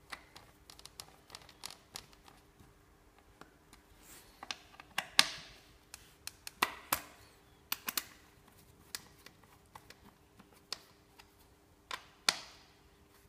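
Scattered clicks and light knocks of hand tools and fasteners against a motorcycle bellypan as it is bolted back on, loudest about five seconds in and again near the end, over a faint steady hum.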